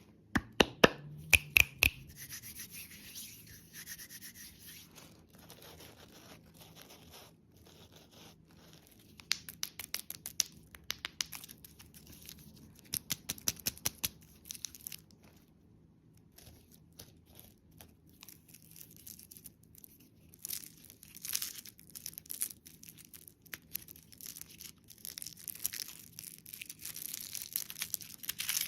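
Close-miked handling of candy and its packaging: clusters of sharp clicks and taps, then denser crinkling and rustling in the last several seconds.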